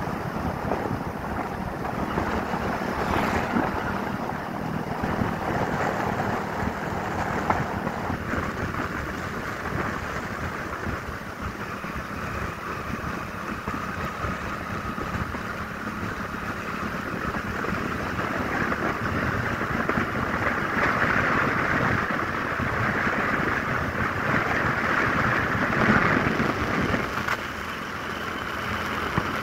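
Motorcycle on the move: wind rushing over the microphone, with the engine's steady low hum underneath. The wind rush grows louder in the second half.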